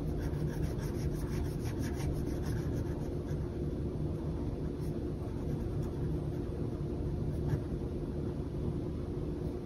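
Coloured pencil scratching back and forth on paper, shading in a box, in quick strokes clearest in the first couple of seconds, over a steady low background hum.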